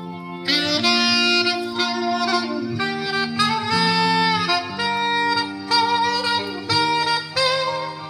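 Instrumental background music: a slow melody of changing notes over sustained low chords.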